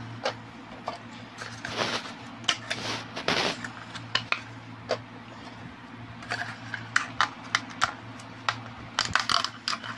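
Scattered light clicks, taps and short rustles of plastic feeder containers holding superworm pupae being handled, over a steady low hum.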